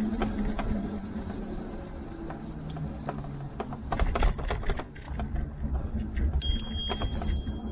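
Riding noise picked up by a handlebar-mounted camera on a Tern HSD cargo bike rolling over a wet path: a steady low rumble of tyres and wind, with rattles and knocks as the bike goes over bumps, a cluster of knocks about four seconds in. Near the end a thin high ringing tone sounds for about a second.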